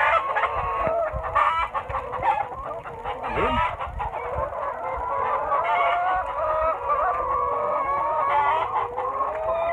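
A large flock of laying hens clucking and calling all at once, many overlapping calls with no pause, with a few light knocks in the first couple of seconds.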